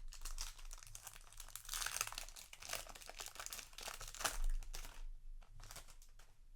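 Foil booster pack wrapper crinkling and tearing as it is ripped open. The dense crackling thins to a few light rustles and clicks after about five seconds.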